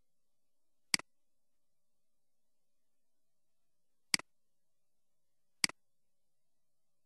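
Three computer mouse clicks, each a sharp press followed closely by a softer release: about a second in, at about four seconds and at about five and a half seconds.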